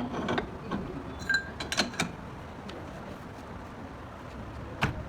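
Metal tools and parts clinking and knocking during hand work on a car: a quick run of sharp clinks in the first two seconds, one ringing briefly, then a single click near the end.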